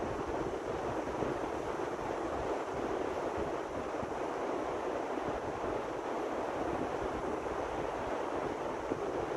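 Steady wind blowing across the microphone in a low, fluttering rumble, over the even wash of ocean surf.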